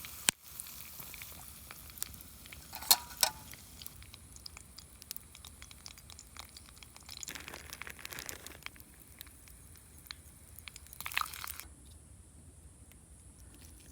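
Scattered small clicks and crinkling handling noises, with a pair of sharper clicks about three seconds in and a brief rustle near the end.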